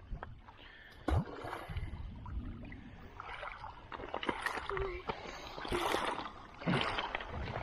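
Loose shoreline rocks clattering and crunching as stones are picked up and stepped on, a run of short sharp clicks between about four and seven seconds. Low rumble and two heavy bumps on the microphone, about a second in and just before the end.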